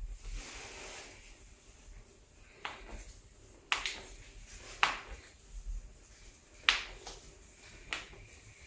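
About five sharp, short clicks, unevenly spaced a second or two apart, from a chiropractic adjustment of the patient's back and legs.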